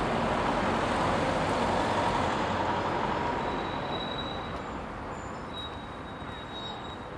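Busy street traffic: a steady rush of passing vehicles that is loudest for the first few seconds, then fades as a vehicle moves away. Faint thin high tones sound in the second half.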